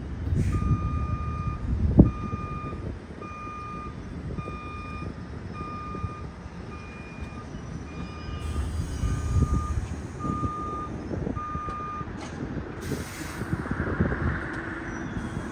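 A vehicle backup alarm beeping steadily, about ten beeps a second apart, that stops near the end. Under it a subway train rumbles slowly through the yard, with a sharp clank about two seconds in and a hiss of air near the end.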